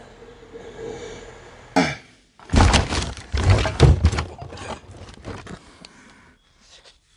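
A sharp knock, then about two seconds of loud, irregular thumps and knocks, fading into a few fainter knocks.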